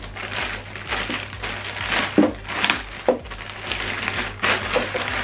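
Plastic packaging crinkling and rustling in irregular bursts as the soundbar's accessories are unwrapped, with a few sharp clicks.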